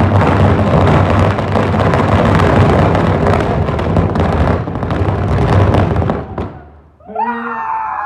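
A string of firecrackers (ladi) going off in a rapid, continuous crackle of bangs that stops about six and a half seconds in. Near the end, a person calls out in a long, drawn-out shout.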